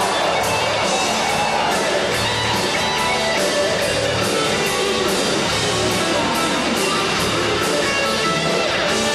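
Live rock band playing amplified: electric guitar over a drum kit keeping a steady beat with regular cymbal hits.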